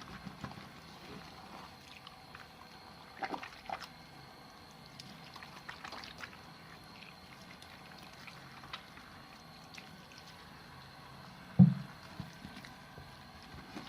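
Wet soap being lathered by hand with water: soft sloshing and squelching with scattered small clicks, and one loud thump a little before the end.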